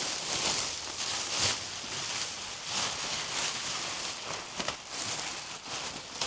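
Fertilizer bags being handled: irregular rustling and crinkling that swells and fades every second or so, with a few sharp crackles.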